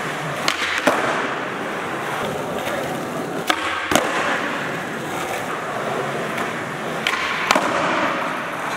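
Skateboard wheels rolling on a hard indoor gym floor, with three pairs of sharp wooden cracks: the tail pop and the board slapping down on landing of flatground flip-trick attempts. The pairs come about half a second apart within each pair, the first pair near the start, the second about 3.5 s in and the third about 7 s in.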